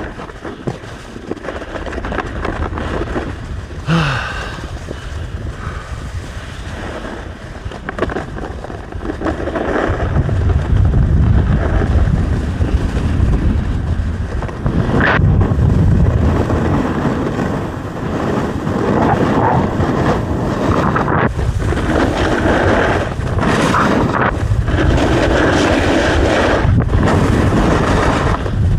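Wind buffeting the microphone over the hiss and scrape of a downhill slide on hard, icy snow, growing louder about a third of the way in as speed picks up.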